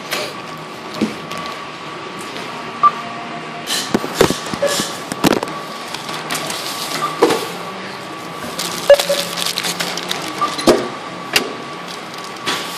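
Supermarket background sound: irregular knocks, clicks and rustles over a faint steady hum, with a few short tones.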